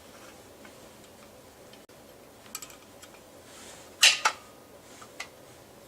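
A hex wrench being tried on a vintage Simplex Chevron fire alarm: a few light ticks, then two sharp metal clicks about four seconds in and one faint tick near the end.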